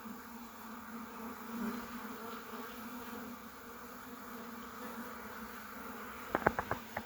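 Honeybees buzzing steadily around an opened hive. About six seconds in comes a quick run of four sharp clicks or knocks.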